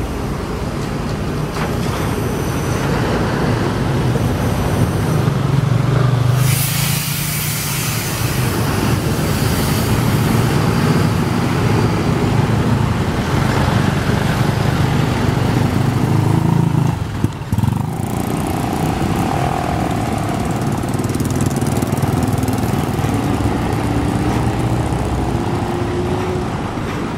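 Diesel buses and other traffic passing on a wet road: a steady engine rumble with tyre noise, and a loud hiss about seven seconds in. The sound breaks off briefly a little past halfway, and near the end an engine rises in pitch as it pulls away.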